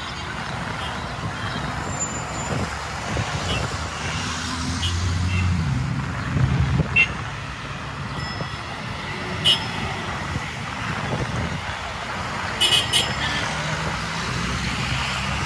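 Road traffic running past steadily, with a low engine hum that swells about a third of the way in as a vehicle passes. A few short, sharp clicks come in the second half.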